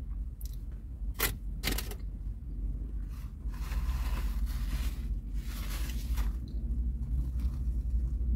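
Chewing of a chicken burger, with two sharp mouth clicks about one and two seconds in, over a steady low rumble. A stretch of hiss rises from about three and a half seconds in to about six seconds in.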